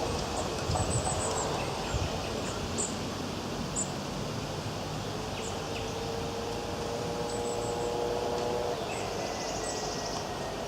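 Outdoor ambience: a steady background rush with scattered short, very high-pitched bird chirps, some in quick little runs. A faint steady hum comes in about halfway through and stops about three seconds later.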